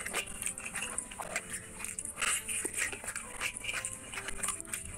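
Close-miked wet chewing and lip smacking while eating rice and chicken curry by hand, in short irregular clicks and smacks, with the squish of curry-soaked rice and chicken under the fingers.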